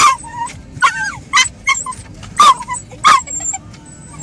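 Dog barking inside a car cabin: about six sharp barks, irregularly spaced, some ending in a short high yip or whine.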